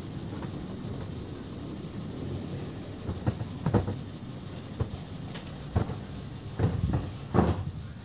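Irregular metal clunks and knocks, about seven of them over the second half, as an LG washing machine gearbox is worked loose by hand and pulled free of its triangular mounting bracket, over a steady low rumble.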